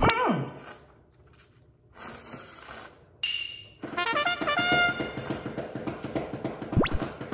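Comic sound effects over upbeat background music: a falling whistle-like glide at the start, soft noodle slurping, then a short run of stepped brass notes about four seconds in. After that comes a tune with a steady beat, and a quick rising swoosh near the end.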